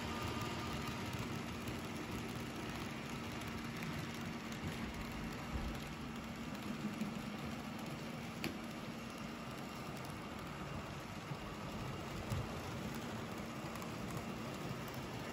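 N-scale model freight train running around the track: a steady rattling rush of small wheels on rail over a faint motor hum, with a few light clicks.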